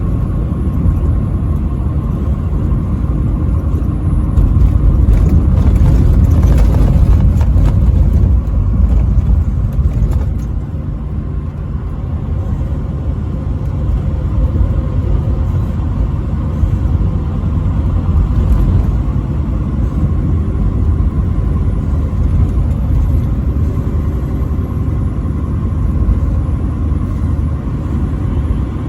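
Steady engine and road rumble of a vehicle travelling on an interstate highway, louder for a few seconds about five seconds in.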